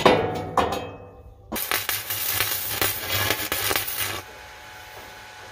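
Steel clanking and ringing as a steel leg frame is knocked into place against a steel barrel. About a second and a half in, an electric welding arc crackles and sizzles for about two and a half seconds as the leg is welded onto the barrel, then cuts off suddenly.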